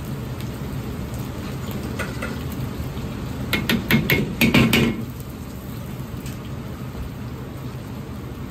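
Ground pork sizzling in hot oil in a carbon-steel wok, with a gas wok burner running underneath. From about three and a half seconds in, a metal ladle clinks against the wok several times in a quick cluster as black bean paste is added.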